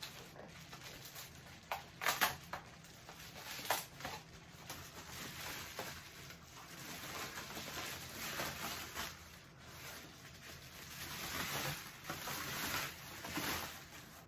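Bubble wrap rustling and crinkling as it is pulled off a small white stool, with a few sharper crackles about two seconds in and again a little later.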